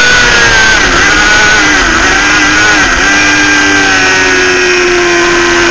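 Motorcycle engine heard onboard under heavy wind rush. The engine note drops and wavers for a couple of seconds, then holds steady at a lower pitch.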